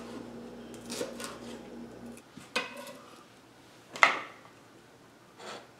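A kitchen knife knocking on a plastic cutting board while slicing a red bell pepper into julienne strips: a few separate knocks, the loudest about four seconds in.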